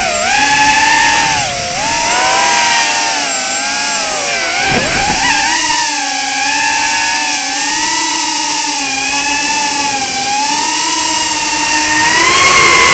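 Emax Tinyhawk 2 micro FPV drone's brushless motors whining, the pitch swinging up and down with the throttle. About five seconds in the pitch drops sharply for a moment and climbs back, and near the end it rises and gets louder.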